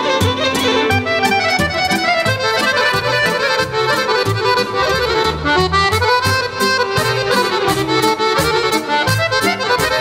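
Live traditional Balkan folk music led by two chromatic button accordions, one a Guerrini, playing a fast tune together over a steady beat.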